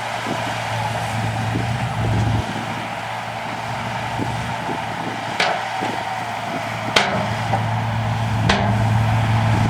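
Diesel engine of heavy earthmoving machinery running under varying load, with a fine mechanical rattle and three sharp metallic clanks about halfway through and near the end.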